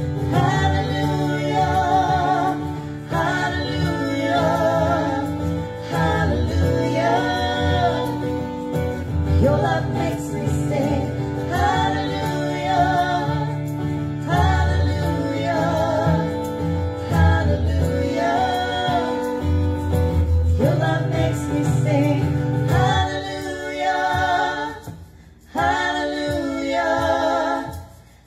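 Christian worship song: singers over a steady instrumental backing. Near the end the instruments drop out and the voices go on alone.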